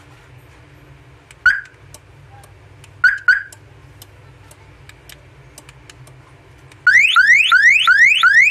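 Redline 30 W car alarm siren, set off from its key-fob remote. It gives one short chirp, then a quick double chirp about a second and a half later. About seven seconds in, it breaks into a loud siren tone that sweeps up over and over, about three times a second.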